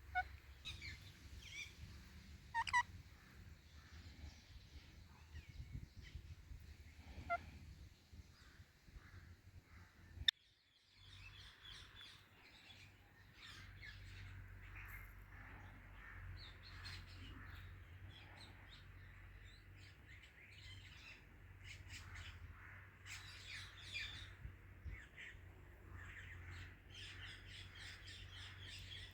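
Faint bird chirping: a few louder short calls in the first few seconds, a sharp click about ten seconds in, then many quick quiet chirps over a steady low hum.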